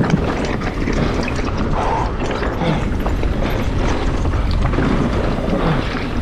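Mountain bike riding fast down a rough downhill trail, with a steady clatter of chain, suspension and tyres over rocks and roots, broken by many short knocks.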